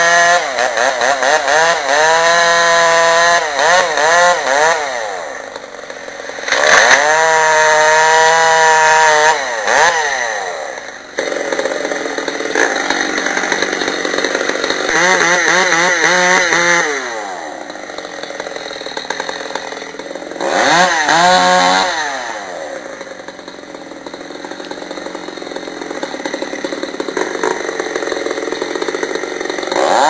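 Stihl 066 chainsaw revving hard several times, its pitch climbing and falling with each rev, dropping back to lower, rougher running in between.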